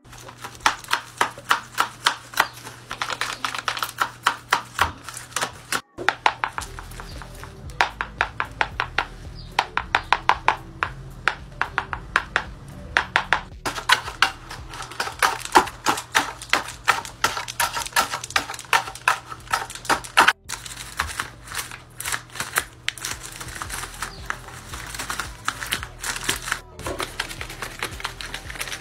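Paper dragon hand puppets' jaws snapping open and shut: runs of quick, dry paper clacks, several a second. Several puppets are heard one after another, with brief breaks between them.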